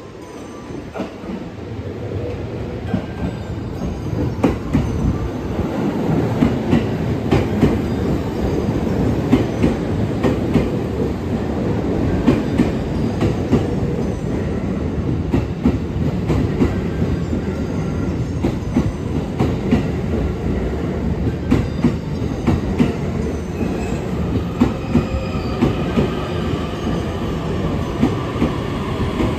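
JR East E231 series electric train running past along the platform, a steady rolling rumble with regular clacks of the wheels over rail joints. It grows louder over the first few seconds and holds steady, with a faint whine near the end.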